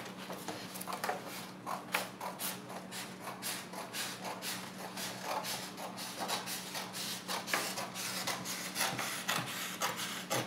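Scissors cutting through a sheet of Bristol board along its fold: a run of crisp snips, a few a second, with the stiff paper rustling as it is cut.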